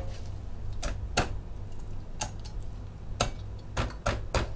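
Knife and cleaver blades tapping and clicking against a wooden cutting board while the backbone is cut out of a butterflied sea bass. The sharp ticks come irregularly, several of them, roughly a second or less apart.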